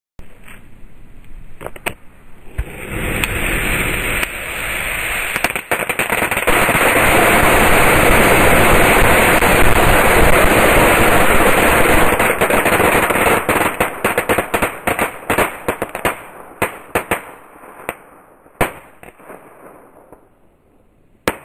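The emptied contents of about 100 green crackerballs going off as one pile. A few pops at first, then a dense, continuous crackle that builds over a few seconds and holds. It then breaks up into scattered sharp cracks that thin out, with a couple of louder single cracks near the end.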